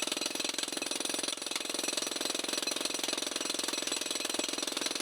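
Jackhammer (concrete breaker) running continuously, its rapid, even hammer blows breaking up thick concrete.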